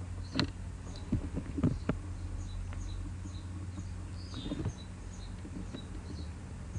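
Steady low electrical hum of background noise, with a few faint clicks and soft, high-pitched chirps scattered through it.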